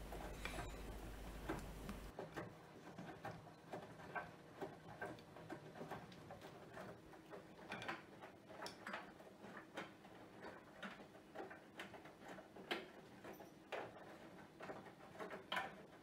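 Bosch Serie 4 VarioPerfect washing machine with EcoSilence Drive on its main wash, running quietly: faint, irregular soft clicks and splashes of water and laundry tumbling in the drum. A low hum stops about two seconds in.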